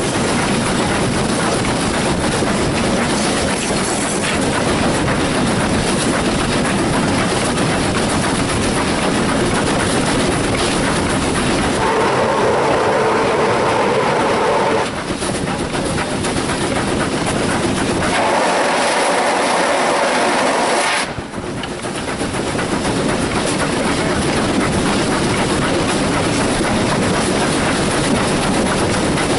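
Steam locomotive S.P.L.CO. #28 running along the line, a steady loud rush of train noise with the clickety-clack of wheels over rail joints. Two long steady whistle blasts sound over it, about twelve and eighteen seconds in, each lasting about three seconds.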